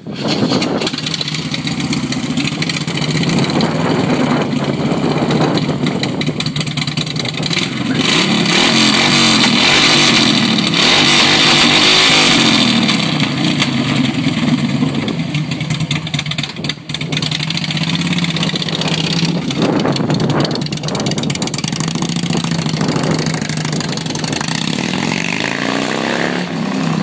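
Big V-twin touring motorcycle engine starting, then idling and being revved repeatedly, its pitch rising and falling; the loudest revving comes about eight to thirteen seconds in.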